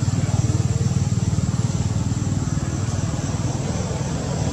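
A motor vehicle engine idling, a steady low throbbing rumble, with a thin steady high tone above it.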